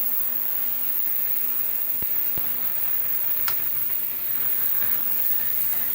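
Steady electrical mains hum with a background hiss, and a few faint clicks; the sharpest comes about three and a half seconds in.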